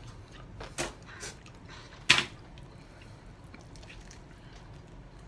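Mouth sounds of eating a whole sauced chicken wing: a few sharp wet clicks, the loudest about two seconds in, over faint chewing.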